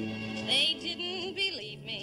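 Music between the sung lines of a slow love-song duet: the accompaniment carries on, with a held note wavering in vibrato about half a second in.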